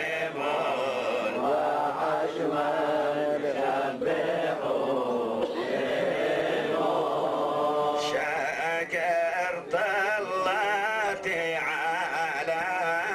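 Men's voices chanting Hebrew prayers in the Adeni Jewish synagogue tradition, a continuous sung recitation that becomes more ornamented and wavering in the second half.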